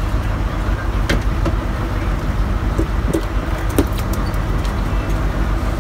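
Boat engine running steadily under way, a low drone with water and wind noise over it, and a few light clicks.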